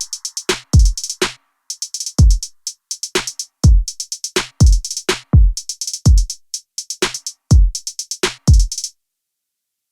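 Background electronic music with a drum-machine beat: deep kicks that drop in pitch, with quick hi-hat ticks between them. It cuts off suddenly about a second before the end.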